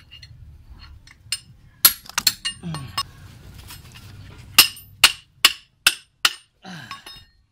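Metal-on-metal strikes: the jaw of a pipe wrench, swung as a hammer, hits a combination wrench hooked under a motorcycle's front-fork oil seal to pry the tight seal out of the fork tube. A few scattered clinks come first, then a run of five sharp, ringing hits about half a second apart in the second half.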